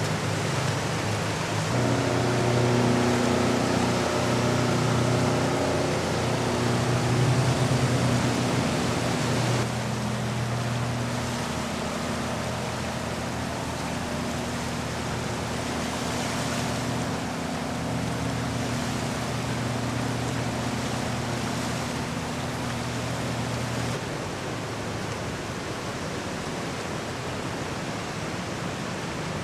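Tugboat diesel engines running with a steady low hum under a constant hiss of wind and water; the hum changes pitch and strength abruptly at three points as different boats are heard.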